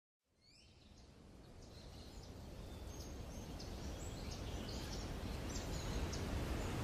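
Outdoor park ambience fading in: a steady low rumble of background noise with faint, scattered bird chirps.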